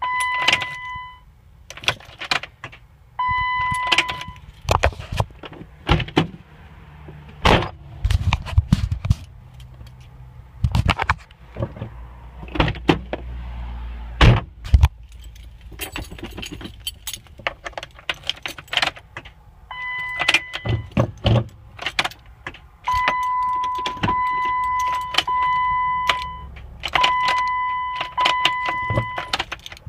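Keys jangling and repeated sharp clicks as a 2007 Jeep Wrangler's ignition is tried. A steady electronic warning chime beeps on and off in roughly one-second pulses. The engine does not start.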